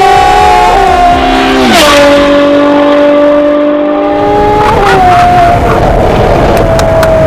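High-performance car engine and free-flowing exhaust running loud under hard driving, its note dropping sharply at gear changes about one, two and five seconds in.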